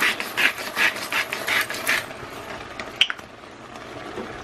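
Hand-twisted salt or pepper grinder grinding over the pot, a run of rasping, ratcheting turns about three a second that stops about two seconds in. A click follows, then a sharp knock at the end.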